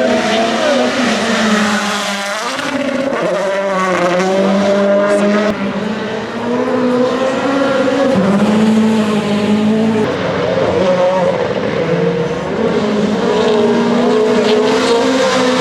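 Rally1 car's turbocharged 1.6-litre four-cylinder engine at racing speed, the engine note rising and falling repeatedly with throttle and gear changes.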